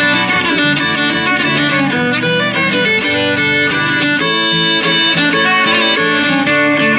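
Acoustic string band playing a bluegrass instrumental in 7/8 time, with a fiddle on the melody over strummed acoustic guitar.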